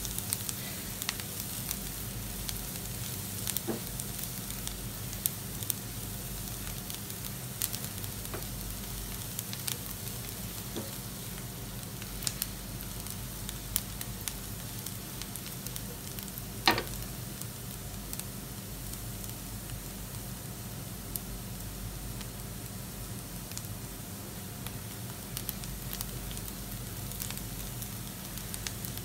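Chopped onion and garlic sizzling in a little oil in a nonstick frying pan, sautéing while a spatula stirs them, with a steady hiss and scattered small crackles. A sharper click stands out about halfway through.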